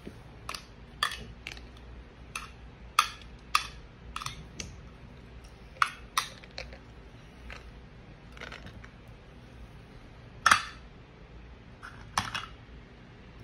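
Toy kitchen cookware and utensils clicking and clinking as they are handled, in irregular knocks with one louder clack about ten and a half seconds in.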